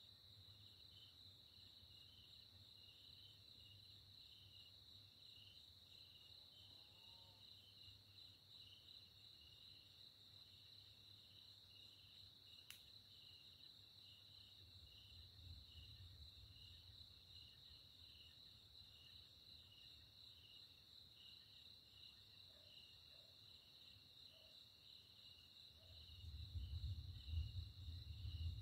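Faint steady chorus of crickets trilling in the dark, one high continuous trill over a lower pulsing one. Distant thunder rumbles low a little past the middle and again, louder, near the end.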